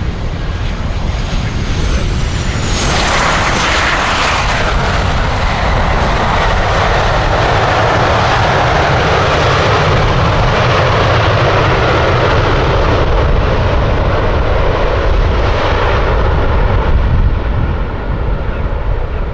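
Boeing 737-800's CFM56-7 turbofan engines passing close on landing. A high engine whine falls in pitch about two to three seconds in, then loud, steady jet noise follows, easing off near the end.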